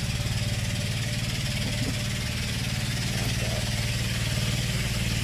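A small engine running steadily, a low even drone with no change in speed.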